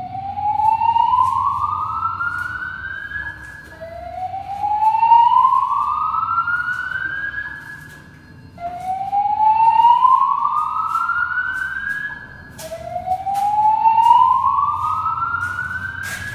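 Building fire alarm system sounding its slow-whoop evacuation tone: a loud rising sweep repeated four times, about every four seconds. It sounds between the recorded voice announcements telling occupants to leave the building.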